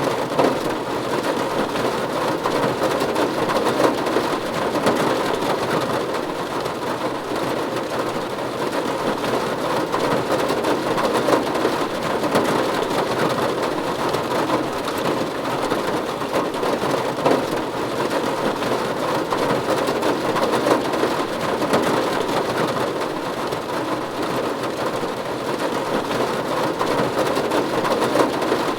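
Steady rain falling on a roof, a dense, even patter of drops.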